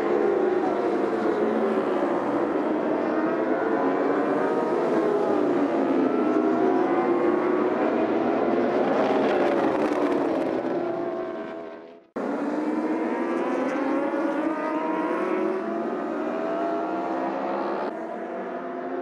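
Endurance racing motorcycle engines running hard, their pitch rising and falling. The sound drops out briefly about twelve seconds in, then resumes.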